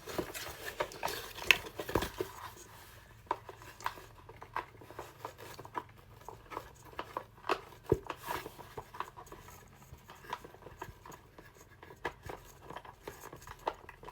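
A screwdriver working the screws that hold a toy in its plastic packaging: irregular light clicks, taps and scrapes of metal on plastic.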